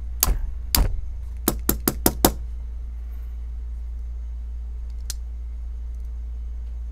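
Sharp little clicks and knocks of a folding pocket knife's metal parts being worked in the hands: about seven in quick succession in the first couple of seconds, then a single click later on. A steady low hum runs underneath.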